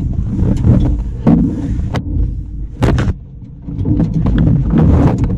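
Knocks and thumps on an aluminum canoe's hull as people and a dog shift about while boarding at a dock, over a steady low rumble; a sharp double knock about three seconds in is the loudest.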